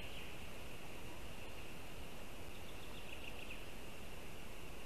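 Steady forest ambience hiss from a nest-camera microphone, with a faint high-pitched trill at the very start and again about halfway through, from a small distant bird or insect.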